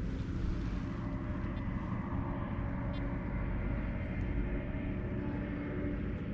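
A steady, low engine drone that holds an even pitch throughout.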